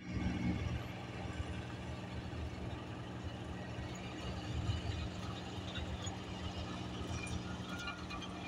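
Small lorry's engine running at low speed as it drives slowly along a dirt farm track, a steady low hum with light rattles near the end.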